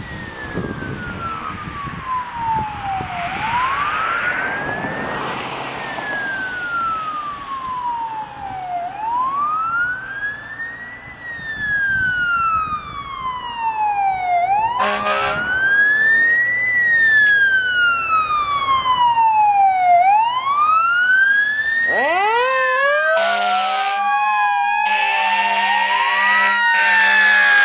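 Fire engine's electronic siren on a slow wail, rising and falling about every five and a half seconds and growing louder as the truck approaches. There is a short air horn blast about halfway through. Near the end a Federal Q mechanical siren winds up with a slowly rising pitch, and the air horns blast repeatedly over it.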